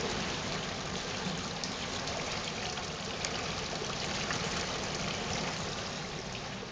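Water splashing and trickling steadily in a garden fountain.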